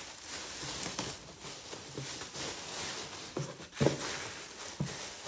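A few light knocks and rustles of things being handled, over a steady hiss.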